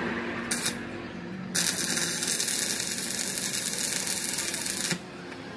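Electric arc welding on a steel crankshaft: a brief crackle of the arc about half a second in, then a steady crackling hiss of about three and a half seconds that cuts off suddenly.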